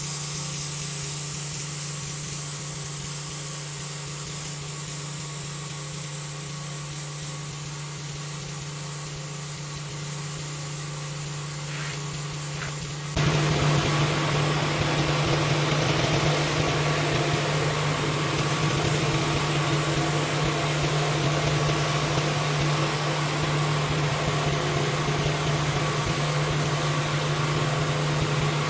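Gas-engine pressure washer running steadily with a constant hum and a hiss of spraying water. About halfway through, the sound suddenly grows louder and stays that way.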